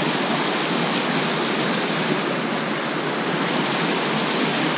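Whitewater of a small cascade on a steep mountain brook: a steady rush of water pouring and splashing over rocks close by, with no change throughout.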